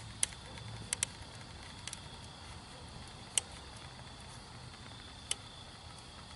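Molten aluminium being poured into a sandy ant mound: a few sharp, brief pops and crackles, the loudest a little past the middle, over a faint steady hiss.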